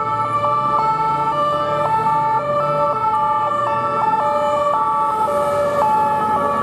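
Two-tone sirens of French police cars sounding, each stepping between a high and a low note about twice a second. At least two sirens sound together out of step, one pitched higher than the other.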